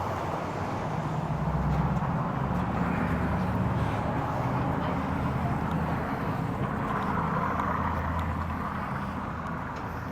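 A motor vehicle engine running steadily: a low engine hum under a wash of street noise.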